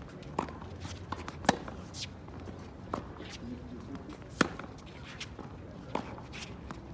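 Tennis rally on a hard court: sharp pops of rackets striking the ball, with ball bounces in between, coming about every second or so. The loudest strikes are about one and a half and four and a half seconds in.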